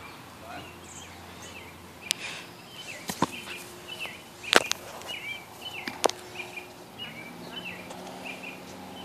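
A bird calling over and over with short chirps, about two a second, with a few sharp smacks, the loudest about four and a half and six seconds in. A faint low hum joins about seven seconds in.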